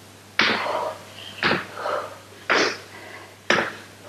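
A woman's sharp, forceful exhales: four short hard puffs about a second apart, each trailing off quickly, one per repetition of a workout move.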